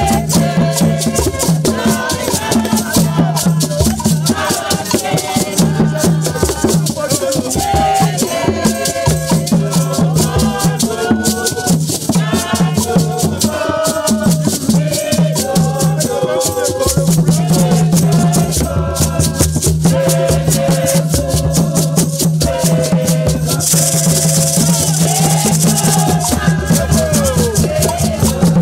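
A group singing together to hand drums and beaded gourd rattles, the rattles shaken in a fast, steady rhythm throughout.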